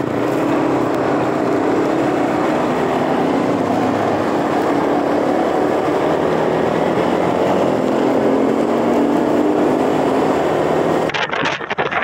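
Motorcycle engine running at a steady road speed with wind rush, its pitch dipping slightly and then rising a little later on. About eleven seconds in it cuts off suddenly to gusting wind on the microphone.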